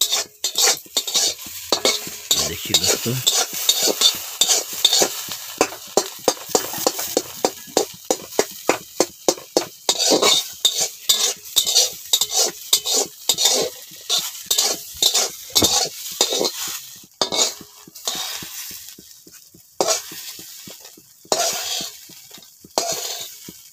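Metal spatula scraping and tapping against an aluminium wok while scrambled eggs fry in oil with a steady sizzle. The strokes come in quick runs of about three a second, then thin out with pauses after about seventeen seconds.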